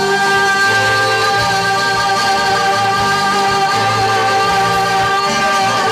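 A woman singing one long held note into a microphone over a live band with bouzouki playing a Greek song, the lower accompaniment moving beneath her sustained note.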